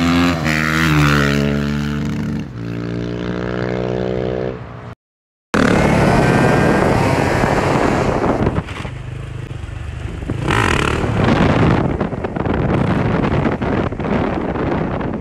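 Dirt bike engine revving as the rider wheelies along the road, its pitch climbing and then holding. After a brief break about five seconds in, the engine is heard again, rougher and noisier, with short rises in revs.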